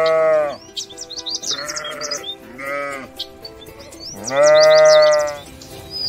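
Sheep bleating four times: a long loud bleat at the start, two shorter, fainter ones in the middle, and another long loud bleat about four and a half seconds in.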